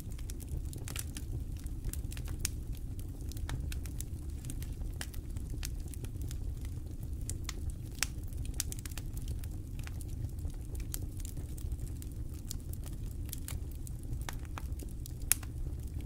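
Wood campfire crackling: irregular sharp pops and snaps over a steady low rumble, with one louder pop near the end.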